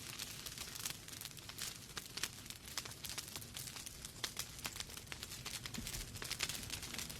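Wood fire burning in a fireplace, with many irregular sharp crackles and pops over a soft low rumble of the flames.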